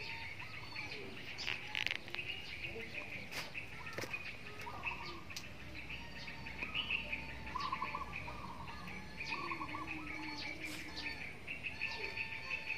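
Several birds chirping and trilling in short, repeated calls, with a few sharp clicks here and there.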